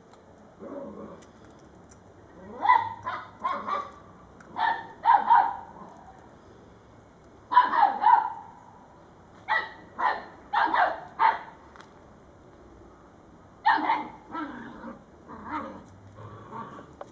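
Border collie barking in short bursts of two to four sharp barks, with pauses of a second or two between the bursts.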